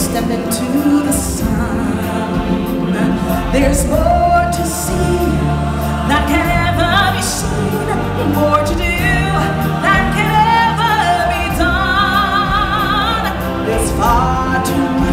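A live stage-show song: a singer with a choir over musical accompaniment, with held notes sung with vibrato near the end.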